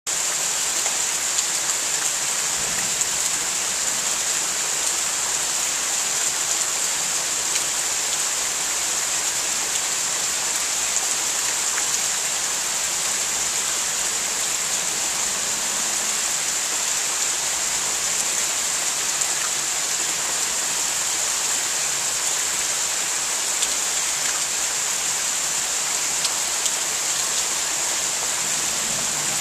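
Steady thunderstorm downpour: rain falling as an even hiss, with scattered ticks of drops striking nearby surfaces.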